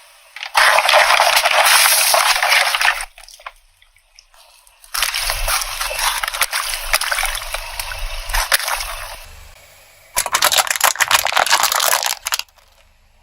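Three bouts of crushing sounds, full of crackles and clicks, as a car tyre rolls over and crushes crunchy and soft objects, each lasting two to four seconds with short pauses between.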